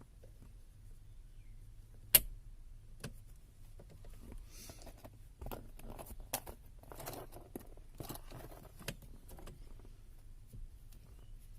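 Light clicking and rattling of small hard parts being handled, with one sharp click about two seconds in and a cluster of small clicks and rustles in the middle, over a low steady hum.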